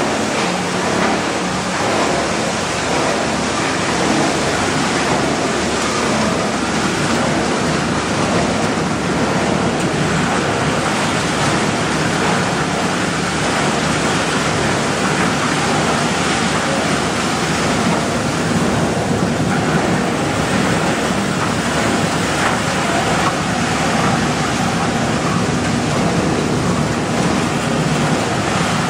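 PET bottle washing and recycling machinery running, with shredded plastic flakes tumbling through drums and being thrown against a steel chamber wall: a loud, steady rushing noise.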